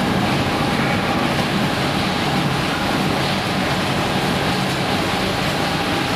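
Bobst die-cutting press and its waste extraction system running: a loud, steady machine noise with a low hum and a faint steady tone, no pauses.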